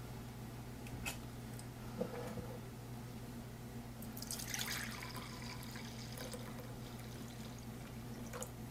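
Vinegar being poured, with a short splashing pour about four to five seconds in and a few light clicks before it, over a steady low hum.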